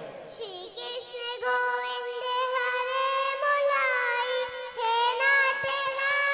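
A young boy singing into a microphone, holding long notes with a wavering pitch.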